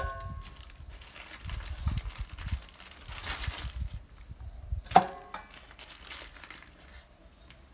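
Plastic bags of raw chicken crinkling as they are handled. Stainless steel bowls clink and ring briefly: once at the start, and loudest about five seconds in, when a bag is set down into a bowl.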